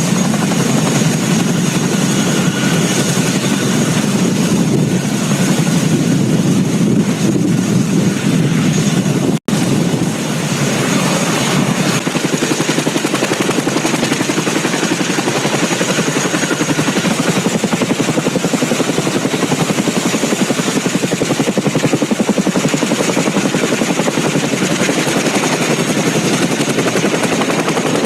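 Boeing CH-47 Chinook tandem-rotor helicopter flying, its rotors giving a loud, steady, fast beating chop. The sound drops out for an instant about nine seconds in.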